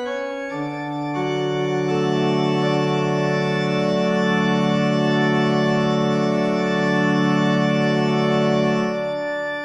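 Organ music moving into a long held closing chord; the low notes drop out near the end.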